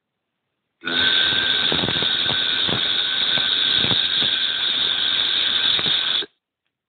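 A long, steady sound effect from the coursebook's listening track, the answer to 'is it a snake or a bee?', starting about a second in and cutting off about six seconds in.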